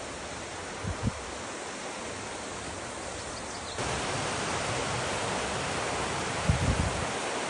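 Steady rushing of a mountain stream, becoming suddenly louder about four seconds in, with a few low thuds near the start and again near the end.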